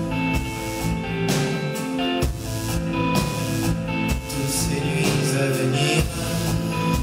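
A live pop band plays an instrumental passage of the song: electric bass and guitar over a steady beat, with roughly one accented hit a second.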